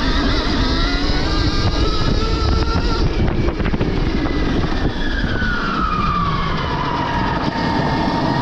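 Stark Varg EX electric dirt bike's motor whining, the pitch rising and falling with the throttle, over a steady rumble of wind and trail. The whine sinks about halfway through and climbs again near the end, and there is a quick run of knocks a little after three seconds in.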